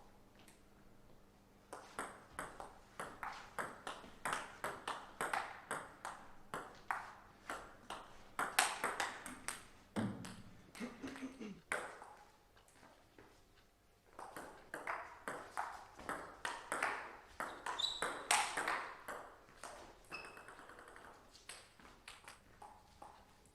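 Table tennis rallies: the ball clicking sharply off rackets and table several times a second, with a short lull in the middle.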